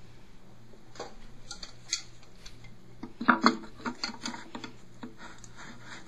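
New Sloan FlushMate plastic cartridge being screwed down into a pressure-assist toilet tank with pliers: irregular clicks and knocks, loudest about three seconds in.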